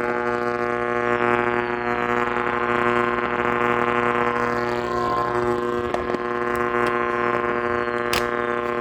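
A steady, unbroken electronic drone with many stacked overtones, the background music bed under an emergency alert broadcast. A few sharp clicks come through, the strongest about eight seconds in.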